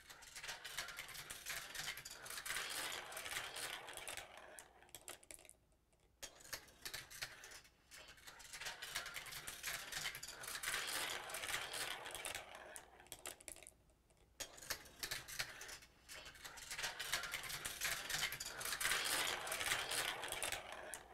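A marble rolling and clattering down a GraviTrax plastic marble run: a rolling rumble with many small clicks. It swells and fades three times, with short quiet gaps about six and fourteen seconds in.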